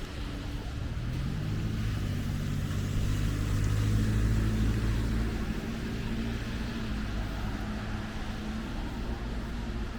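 A motor vehicle drives past on a wet road: its engine hum builds, is loudest about four seconds in, then fades away, over a steady hiss.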